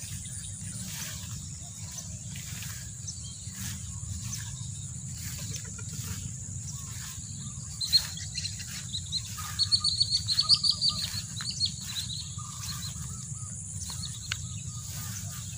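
Birds chirping in a quick run of short high calls from about eight to twelve seconds in, over a steady high insect drone. Footsteps fall about twice a second throughout.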